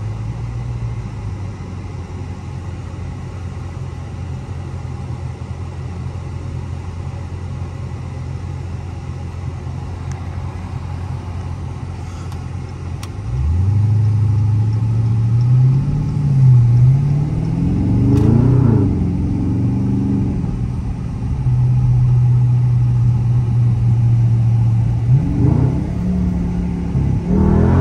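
Dodge Charger Scat Pack's 6.4-litre HEMI V8, heard from inside the cabin, idling steadily, then about halfway through pulling away under power. The revs climb, fall back as it shifts up, settle, and climb again near the end.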